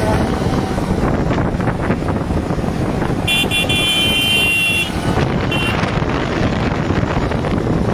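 Engine and wind rush of a moving road vehicle, with a vehicle horn sounding one long honk a little over three seconds in and a short second honk about two seconds later.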